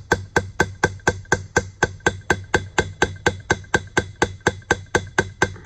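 Hammer tapping a punch against the brazed, threaded-in part of a Boye & Emmes lathe compound to drive it round and unscrew it: a steady run of sharp metal knocks, about five a second, each with a short ring.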